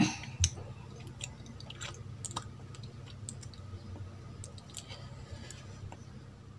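Close-up mouth sounds of someone finishing a meal by hand: wet lip smacks and chewing clicks, two sharp smacks right at the start, then scattered small clicks.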